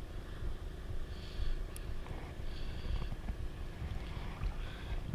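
Wind rumbling on the microphone over sea water lapping at the shore, with soft splashes now and then.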